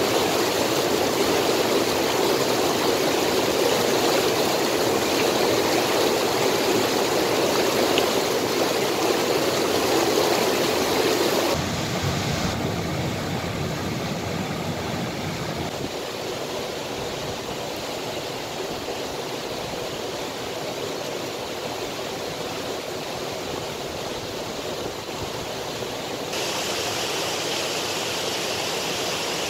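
Fast-flowing river water rushing in a steady, loud noise. The sound changes abruptly about twelve seconds in, becoming quieter and deeper, and again near the end.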